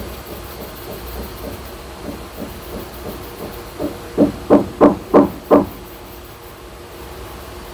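A hard kitchen object knocking five times, about three knocks a second, each knock with a short ringing tone, after a few seconds of fainter tapping and handling sounds.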